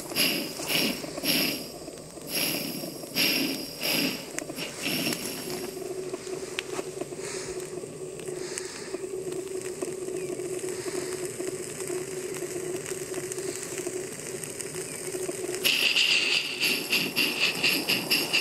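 Live-steam 1:20.3-scale model of a Rio Grande K-36 steam locomotive chuffing as it runs, with rhythmic exhaust beats and steam hiss. The beats fade for a while, leaving a steady hum, then return loud and quick, about three a second, near the end.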